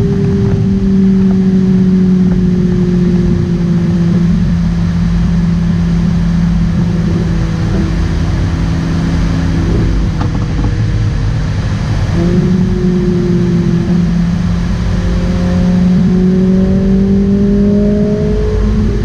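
Ferrari 458 Italia's V8 engine heard from inside the cabin at highway cruise, over tyre and road rumble. Its steady drone sinks slowly in pitch, jumps up about twelve seconds in, then climbs again.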